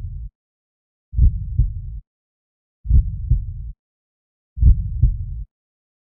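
Slow heartbeat sound: a low double thump, lub-dub, repeating about every second and three quarters, with silence between beats.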